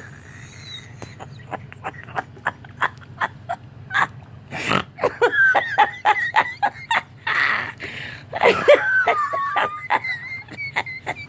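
Guinea pigs squeaking, thin high whistles that glide up and down, one falling near the end, among many irregular sharp clicks.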